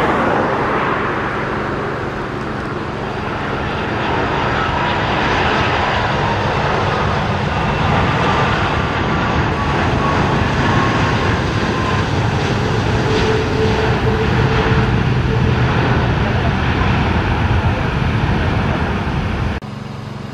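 Jet airliner's engines running loud and steady, with a faint whine sliding slowly down in pitch as the aircraft goes by. The sound drops off abruptly near the end.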